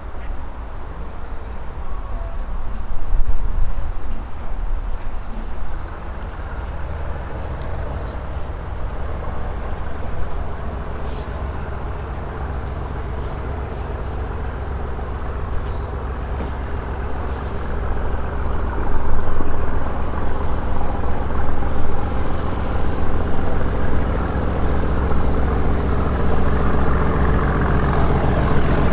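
Class 37 diesel locomotive 37518's English Electric engine running, growing much louder about two-thirds of the way in and staying loud to the end. Short high chirps repeat about once a second through most of it.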